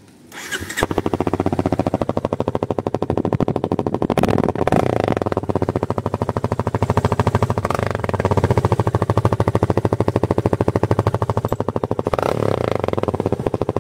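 Yamaha Fazer 250's single-cylinder engine coming in about half a second in and running with a loud, rapid pulsing exhaust note, revved up a few times. The stock muffler's end cap has been spaced out on longer bolts, so the exhaust gas escapes around its edges and makes the noise.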